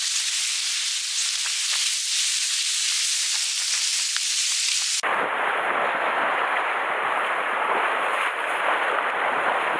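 Sea surf washing over the rocks, a steady hiss. About five seconds in, an edit cuts to a fuller, rougher rush of waves and wind.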